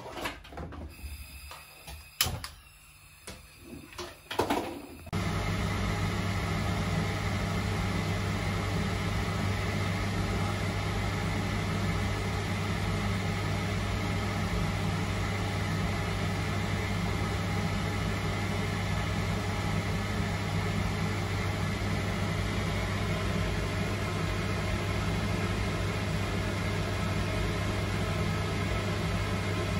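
Kitchen extractor hood fan running with a steady electric hum and an even rushing hiss, starting suddenly about five seconds in. Before it, a few light clicks and knocks of handling at the stove.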